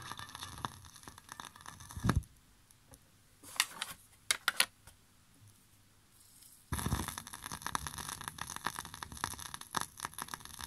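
Vinyl 45 surface crackle, a thump and a few sharp clicks as the record is changed, then the stylus drops onto the next single at about two-thirds of the way through and the lead-in groove crackles.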